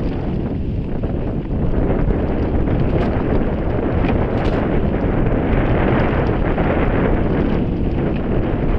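Wind buffeting the action camera's microphone as a mountain bike rolls fast down dry, rocky dirt singletrack, with tyre noise on the dirt and small rattles and clicks from the bike over the bumps.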